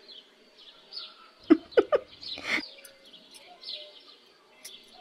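Small birds chirping outdoors, with a cluster of a few short, louder sounds about one and a half to two and a half seconds in.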